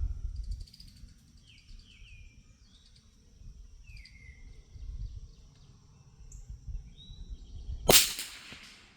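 Birds chirping in short falling calls, then about eight seconds in a single sharp crack from a Brno Model 1 bolt-action .22 LR rifle shot, with a short echo trailing after it.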